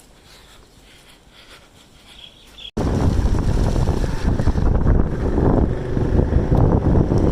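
Loud wind buffeting the microphone, a rough low rumble that cuts in suddenly about three seconds in after a faint, quiet background.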